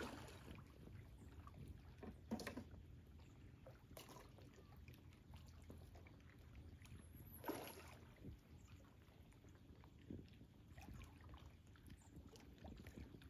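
Faint, near-silent water around a small inflatable dinghy: a few soft splashes at the start, about two and a half seconds in and about seven and a half seconds in, over a low rumble.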